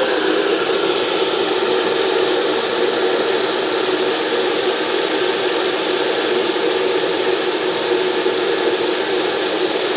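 NutriBullet blender motor running steadily, its cup twisted and locked down, blending a thick fruit smoothie.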